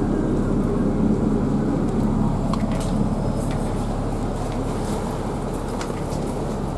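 Steady low engine and road rumble of a double-decker bus in motion, heard from inside on the upper deck, with a few light rattles.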